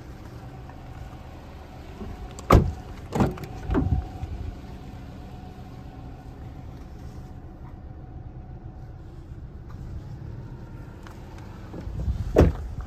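Handling noise around a parked car: three sharp knocks in a row a few seconds in, then a louder thump near the end, with a short clatter after it, like a car door being shut, over a low steady hum.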